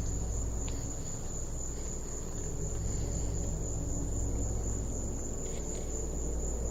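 Crickets trilling in one steady, unbroken high-pitched tone, over a low rumble, with a couple of faint clicks.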